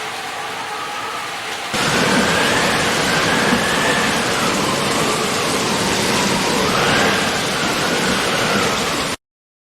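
Steady rain, cutting abruptly to louder, heavier rain about two seconds in, with a faint whistling tone wavering up and down in pitch. It cuts off suddenly to silence just before the end.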